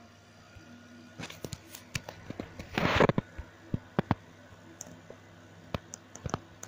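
Unbranded 12-inch box fan running on its low speed with a faint steady hum. Scattered clicks and knocks occur throughout, with a louder rustling burst about three seconds in.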